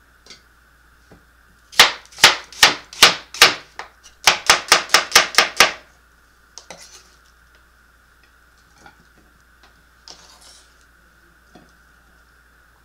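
Kitchen knife chopping a red onion on a plastic cutting board: six spaced strokes, then a quicker run of about eight, followed by a few light knocks.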